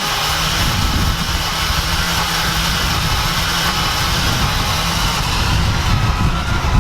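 The Mustang's 4.6-litre V8 being cranked over by the starter, spinning steadily without firing. It is a sign of zero compression, after a blown head gasket led to rod bearing failure.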